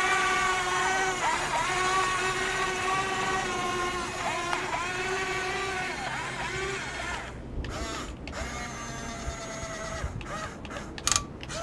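Huina 15-channel RC excavator's electric motors whining steadily, the pitch dipping briefly now and then as they take load. About seven seconds in the whine stops, leaving clicks and scraping, with one short sharp sound near the end.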